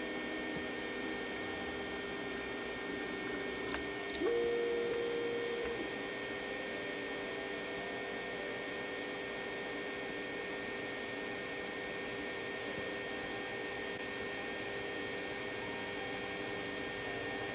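Creality CR-10S Pro 3D printer running quietly on its TMC stepper drivers: a steady hum of fans and motors. A couple of short clicks come just before four seconds in, then a louder tone for about a second and a half.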